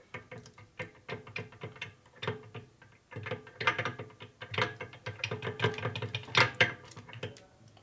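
Irregular metallic clicking and clinking as a cam gear is worked by hand into a 1961 Harley-Davidson XLCH Sportster gearcase, its teeth knocking against the neighbouring gears. A washer on the back side is keeping the cam from going into its hole. The clicks come thickest in the second half.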